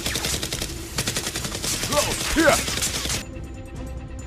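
Rapid automatic gunfire, in the style of a dubbed machine-gun sound effect for a Nerf blaster battle, with a short voice cry about two seconds in. The firing cuts off suddenly about three seconds in.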